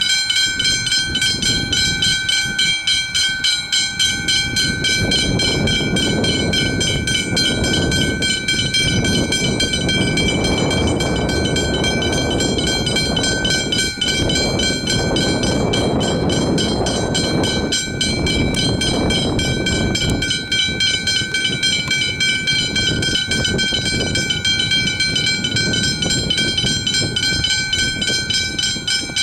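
Level crossing warning bells ringing rapidly and steadily throughout. Underneath, a V/Line VLocity diesel railcar train passes the crossing, its rumble building from about five seconds in and fading after about twenty.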